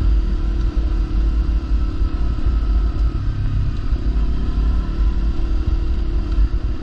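Kawasaki Versys-X 300's parallel-twin engine running at a steady cruising pace on a dirt track, heard from the rider's position, under a heavy low rumble.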